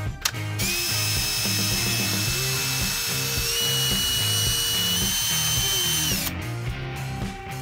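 Makita cordless drill running for about five and a half seconds, starting about half a second in with a steady high whine that steps up in pitch about halfway through, then stopping.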